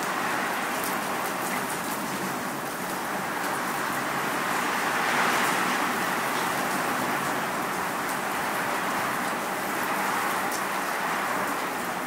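Steady rain with gusting wind, swelling about halfway through and again near the end, with a few scattered sharp drip taps.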